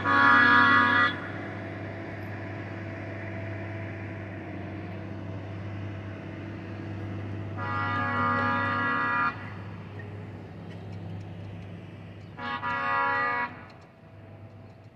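Air horn of a yellow rail maintenance-of-way machine blowing for a road crossing: a blast that ends about a second in, a longer blast around eight seconds in, and a shorter one near the end. A steady low engine hum runs underneath.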